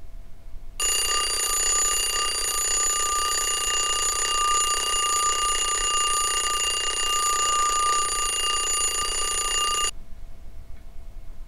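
Mechanical twin-bell alarm clock ringing. It starts about a second in, rings at a steady pitch, and cuts off suddenly near the end.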